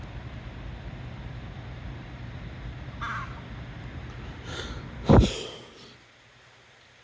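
Gusty wind rumbling on the microphone, with a bird cawing: short calls about 3 and 4.5 seconds in, then a louder one with a knock just after 5 seconds. The wind rumble drops away about a second later.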